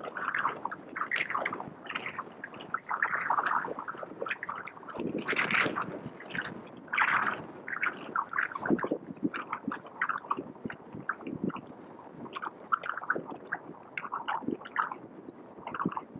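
Outdoor street noise on an action-camera microphone, muffled: a low rumble with irregular short scuffs and knocks.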